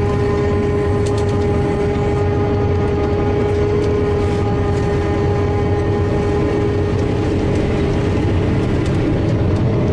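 Self-propelled forage harvester running steadily while chopping standing corn, heard from inside its cab: a constant heavy drone with a steady whine over it and a few light clicks about a second in.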